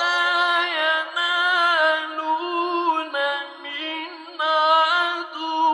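A man's voice reciting the Quran in the melodic mujawwad style, drawing out long notes ornamented with wavering pitch turns. It eases off through the middle and swells again about four seconds in.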